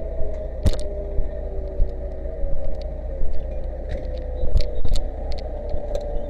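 Fire engine's motor running steadily: a deep rumble with a steady drone, with scattered knocks and clicks.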